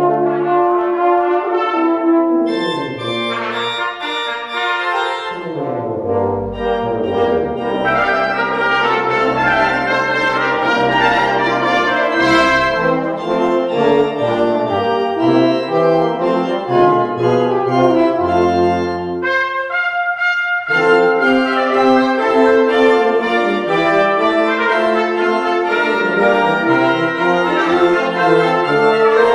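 Brass ensemble of trumpets and tuba playing with a pipe organ, in held and moving chords, with a brief break about two-thirds of the way through.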